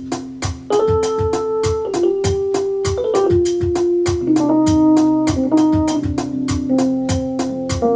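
Electronic keyboard music with an organ sound over a steady beat. A melody of long held notes, each about a second, comes in about a second in.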